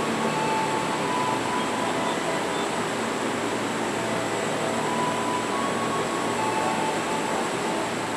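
205-series KRL commuter electric train rolling slowly past the platform: a steady rumble of wheels and running gear, with faint high whining tones that come and go.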